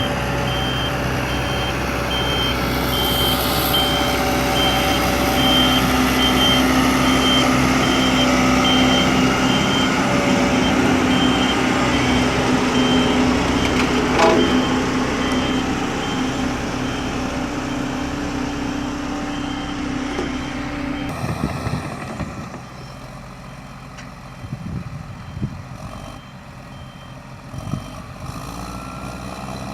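Diesel engine of a heavy vehicle running while its reverse alarm beeps in a steady on-off series, signalling that it is backing up. About two-thirds of the way through, the beeping stops and the sound drops to a quieter, different engine sound.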